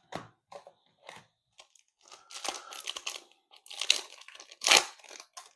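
Foil trading-card pack wrapper being torn open and crinkled. A few light clicks come first, then a few seconds of dense crinkling and tearing, loudest just before the end.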